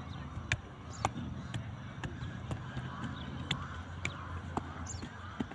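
Sharp knocks at irregular spacing, roughly one or two a second, over a steady low hum and outdoor background noise.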